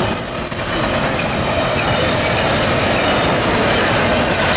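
Double-stack intermodal freight train's loaded well cars passing at speed: a steady, loud din of steel wheels running on the rails.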